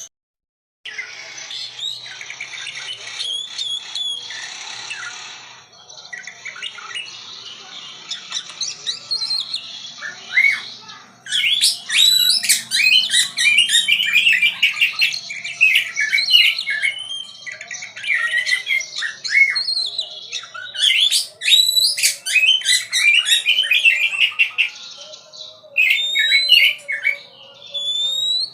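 A songbird singing: a softer, rougher chatter for roughly the first ten seconds, then a loud, fast, varied run of chirps, trills and sharp notes.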